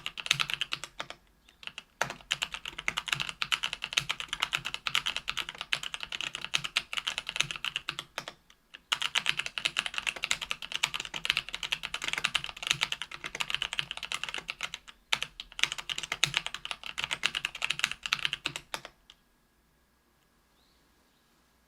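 Fast typing on a mechanical keyboard with stock Kailh Pro Purple 50 g tactile switches, GMK keycaps, an aluminium plate and an aluminium Tofu 65% case. The clicks come in dense runs with a few short pauses, and the typing stops a few seconds before the end.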